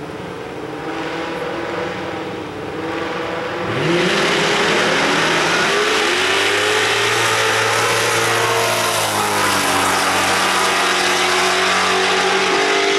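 Two drag cars, one a Ford Mustang, launching off the line at full throttle. The engines build at the line, then get loud about four seconds in, their pitch climbing and dropping back at each upshift as they run down the strip.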